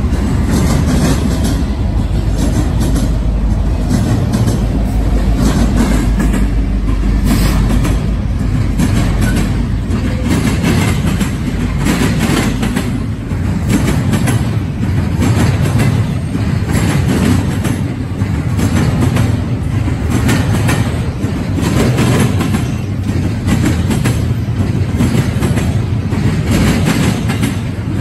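Freight train passing close: Norfolk Southern diesel locomotives running with a heavy low rumble for the first several seconds, then double-stack container cars rolling by with a steady run of wheel clacks over the rail joints.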